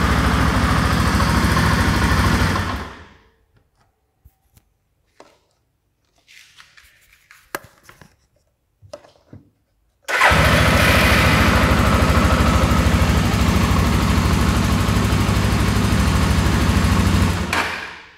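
Suzuki Djebel XC 250's single-cylinder four-stroke engine idling steadily, then shut off about three seconds in. After several seconds of faint clicks and handling noise, it starts again abruptly about ten seconds in, idles steadily, and is shut off again just before the end.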